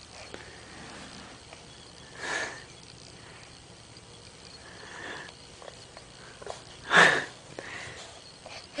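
A baby's short breathy sniffs and huffs with his face pressed into a cat's fur: a few separate breaths a couple of seconds apart, the loudest about seven seconds in.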